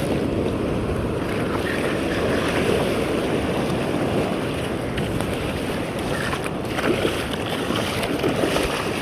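Steady wind buffeting the microphone over the wash of sea water around a small fishing boat.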